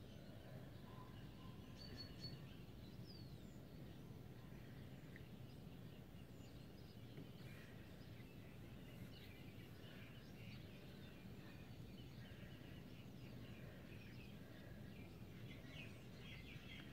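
Faint outdoor ambience: a steady low rumble with scattered faint bird chirps, typical of birds calling at dawn.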